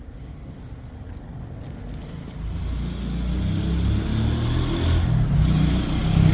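A motor vehicle approaching, its engine rumble and road noise growing louder from about two and a half seconds in.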